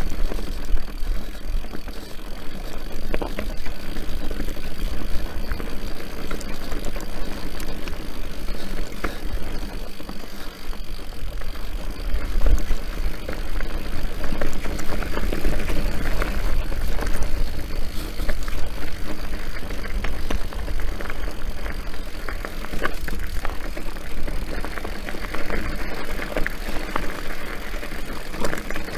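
Orbea Rallon enduro mountain bike riding down a dirt and grass singletrack: a steady heavy rumble of wind on the microphone under the crunch of tyres over earth and stones. Frequent small clicks and rattles come from the bike over bumps.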